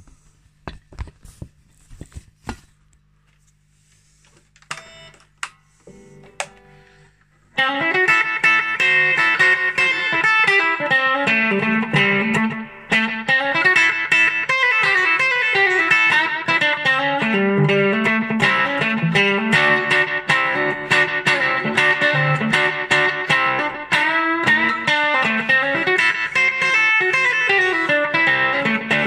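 A few knocks and clicks and a couple of lone guitar notes. About seven seconds in, a Gretsch G5420T hollow-body electric guitar with TV Jones pickups breaks into a fast improvised rockabilly lead line that keeps going.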